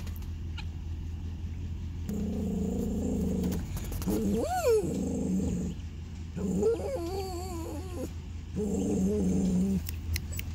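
An animal growling in three low, rough stretches, with a whine that rises and falls back about four and a half seconds in and a wavering call around seven seconds, over a steady low hum.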